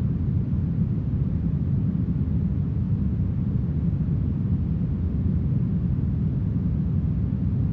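Smoothed brown noise: a steady, even rush, weighted heavily to the low end, with little treble.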